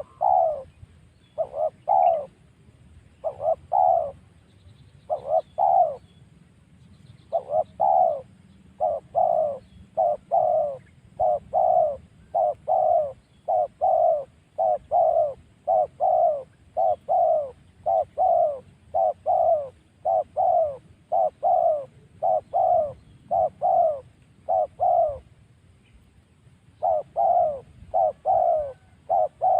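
A dove cooing over and over in short, clear notes, about one or two a second, each note falling slightly in pitch, with a short pause a little before the end. The voice is the crisp 'mersik' kind with a single-'kuk' ending that dove keepers rate.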